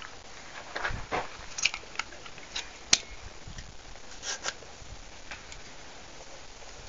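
Scattered mechanical clicks and light knocks from the pistol carbine being handled between test shots, with one sharp click about three seconds in.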